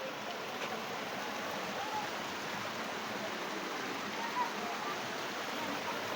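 Waterfall rushing with a steady, even noise of falling water.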